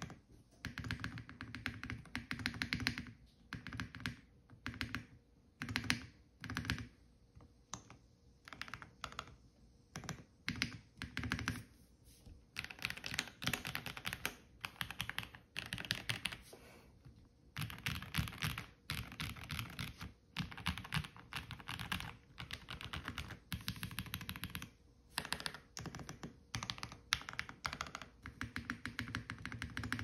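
Custom Ikki Aurora R2 mechanical keyboard with lubed JWICK Black linear switches on a polycarbonate plate, gasket-mounted, with doubleshot ABS keycaps, being typed on: bursts of quick keystrokes separated by short pauses, with longer runs of fast typing in the middle and near the end.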